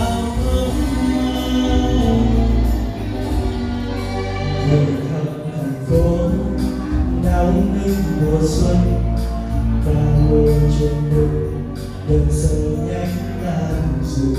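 A man singing a song into a microphone, his voice amplified, over accompanying music with a steady bass and a light beat. He holds long notes that waver and change in pitch.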